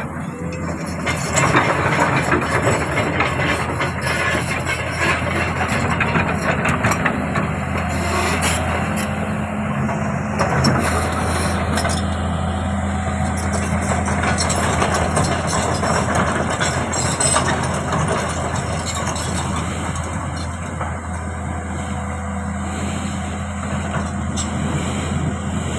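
Komatsu excavator's diesel engine working under load with a steady low drone, getting louder about a second in, with rattling and knocking noise over it.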